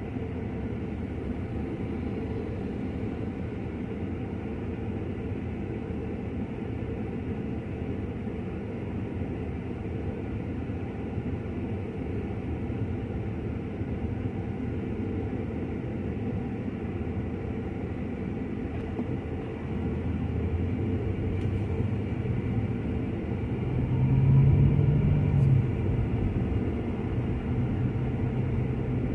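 Car engine and road noise heard from inside the cabin: a steady low running sound while stopped at the light. About two-thirds of the way in it grows louder as the car pulls away, with the engine note rising briefly before settling into steady driving.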